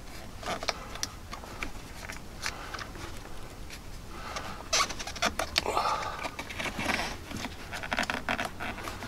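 Rubber door-wiring boot being worked by hand around its plastic mount in a truck's door pillar: rubbing and scraping of rubber on plastic with scattered small clicks, busier in the second half.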